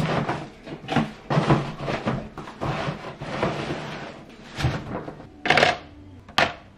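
Cardboard egg cartons and a plastic bin liner rustling and crinkling as waste is pushed into the pull-out paper drawer of an IKEA recycling bin, with scattered knocks and two sharp knocks near the end.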